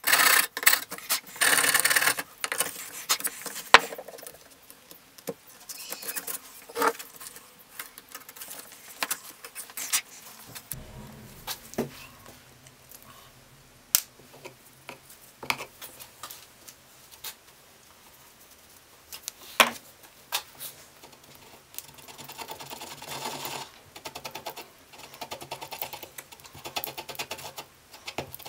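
A hand file rasping in rapid strokes across the back of a sandpaper strip for the first two seconds or so, taking the grit off where the belt's joint will be glued. Then scattered small clicks and taps of handling, a faint low hum from about ten seconds in, and soft rubbing near the end.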